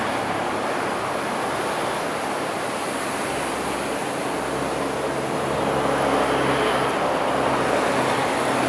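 Surf breaking on the shore, a steady wash of noise, with the low engine hum of an approaching Sri Lanka Railways Class S11 diesel multiple unit that grows a little louder about halfway through.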